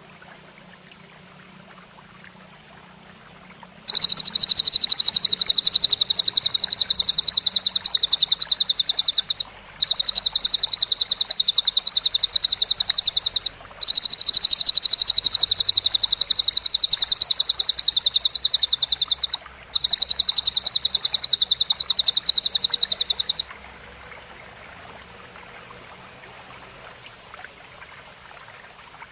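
Very rapid, even, high-pitched buzzing trill in four long bursts with short breaks between them, typical of a grasshopper or katydid (belalang) stridulating, over a faint steady stream-like hiss.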